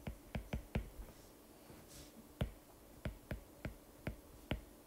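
Stylus tip tapping on a tablet's glass screen while handwriting: about ten faint, irregular clicks, the loudest about halfway through.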